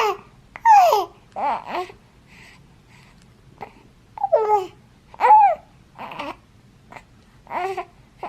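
A baby cooing and babbling: a string of short, high-pitched vocal sounds that slide up and down in pitch, with short pauses between them.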